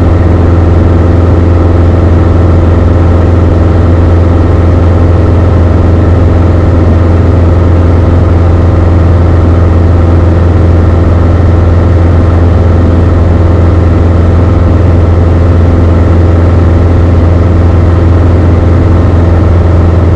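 Beechcraft Sundowner's four-cylinder Lycoming O-360 engine and propeller droning steadily at constant power in flight, heard from inside the cabin as a loud, unchanging low hum.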